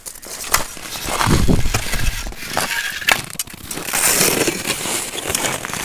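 Ice and snow crunching and scraping in irregular crunches, as ice is worked at a hole and a set line is pulled out through it.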